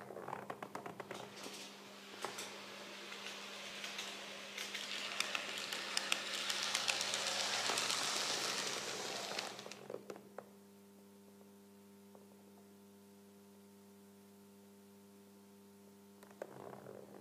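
KATO N-scale Fliegender Hamburger model railcar running on the track: a quick rattle of wheel clicks over the rails and joints, loudest about eight seconds in as it passes close. About ten seconds in it stops and a steady electric hum remains, until the clicking starts again near the end as it moves off.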